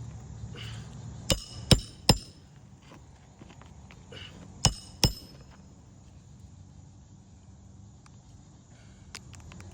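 Hammer striking nails into roof shingles: three quick blows about a second in, then two more a few seconds later, each with a short metallic ring.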